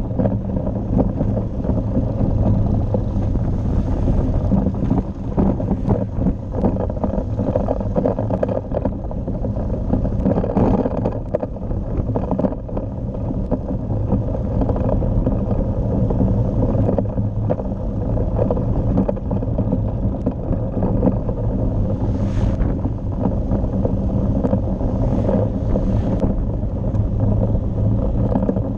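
Motorcycle engine running steadily at cruising speed, with wind buffeting the microphone and tyre noise on the paving blocks.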